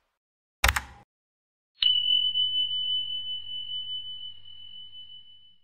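Subscribe-button animation sound effects: a short mouse click, then about a second later a single high bell ding that rings on and slowly fades away.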